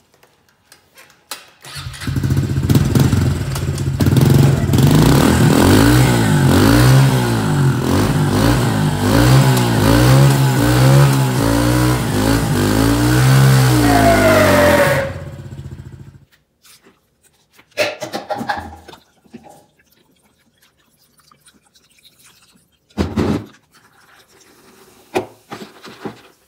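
Small 110 dirt bike's engine revving on a stand with the rear wheel spinning free, run up through the gears: the pitch climbs and drops again and again. It stops about fifteen seconds in.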